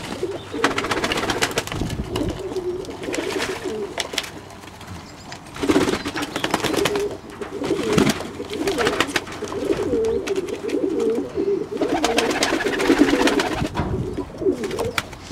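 Fantail pigeons cooing over and over in long overlapping spells, with scattered sharp flaps and splashes as they crowd into a water bowl to bathe.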